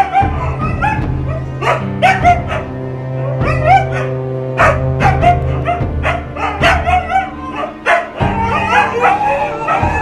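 Siberian huskies vocalising in short yips and whines, over background music with held notes.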